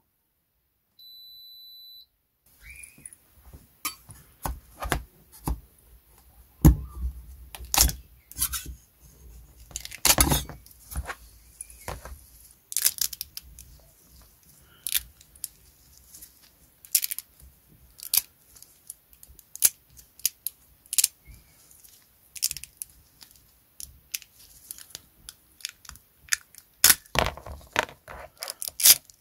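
A short electronic beep from the resin wash-and-cure station about a second in. Then gloved hands break and snap the support structures off freshly washed resin 3D-printed model wheels: an irregular run of sharp cracks, clicks and crunches, heaviest around seven to ten seconds in and near the end.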